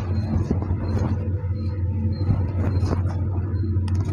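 Steady low machine hum, even throughout, with a few faint clicks over it.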